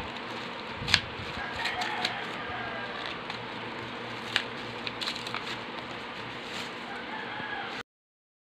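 A thin cardboard box being pulled open and unfolded by hand: paper crinkling and tearing, with a few sharp clicks, over a steady background hiss. The sound cuts out abruptly near the end.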